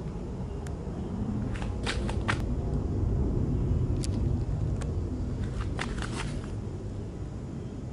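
Dry grass and weed stems crackling and rustling in short scattered snaps, over a steady low rumble on the handheld microphone.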